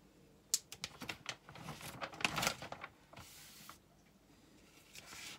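Plastic cover film on a sticky diamond painting canvas being lifted and peeled back by hand: a run of sharp crinkles and crackles for about two seconds, then a short rustle a little after three seconds in, and more rustling near the end.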